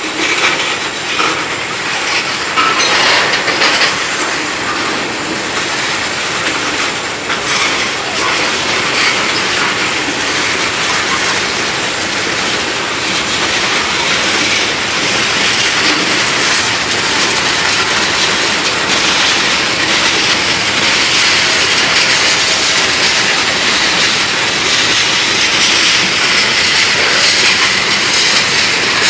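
Freight train tank cars rolling past: steady rolling noise of steel wheels on rail, with a few clicks over rail joints in the first third. The noise grows a little louder in the second half.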